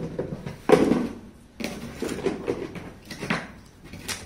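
Plastic sprayer parts being taken out of a knapsack sprayer's plastic tank and set down on a table: a series of knocks and rattles, the loudest just under a second in.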